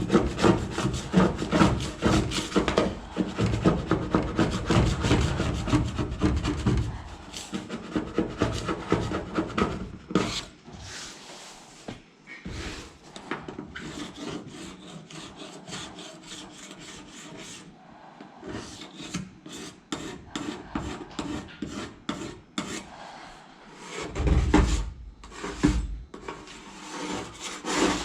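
Repeated rapid scraping strokes of a hand scraper working chemically softened paint off a boat hull. Heavier scraping at the start and again near the end, lighter in between.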